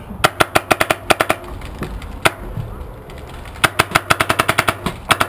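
Tippmann X7 Phenom paintball marker firing rapid strings of sharp pops, about eight to ten shots a second: one string in the first second and a half, a single shot a little after two seconds, then another fast string from about three and a half seconds on.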